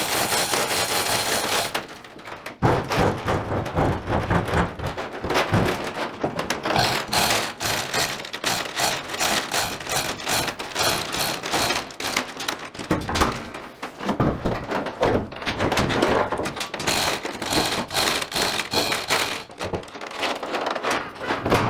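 A short steady rushing noise, then a long run of irregular knocks, thuds and clatter from handling and working the steel hood panel.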